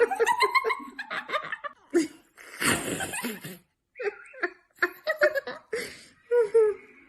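A person laughing in quick, choppy bursts, with a short rushing noise about two and a half seconds in.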